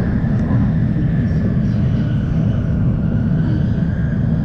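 A steady, loud low rumble with an even hiss of noise over it, unchanging throughout.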